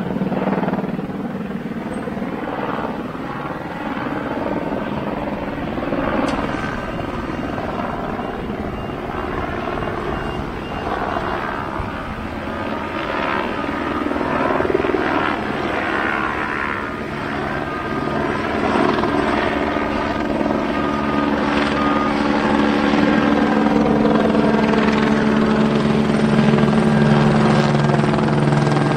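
Aircraft engines running with a steady droning tone that gets louder over the last third.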